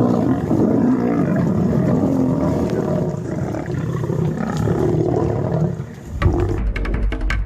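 A large wild animal roaring and growling in two long swells. About six seconds in, music with a drum beat takes over.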